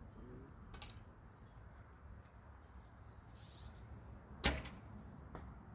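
A short 55 lb horse bow shot once: the string is released about four and a half seconds in with a single sharp snap as the arrow leaves.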